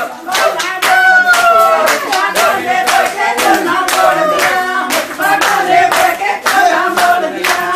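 Women singing Punjabi giddha boliyan as a group, over steady rhythmic hand clapping, about two to three claps a second. One voice holds a long note about a second in.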